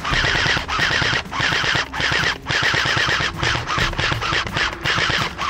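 Airsoft rifle firing full-auto: a string of short rapid bursts, each about half a second long, with brief pauses between them.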